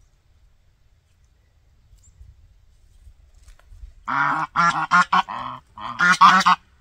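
Geese honking: a quick run of several loud honks starting about four seconds in, then a second burst of honks near the end.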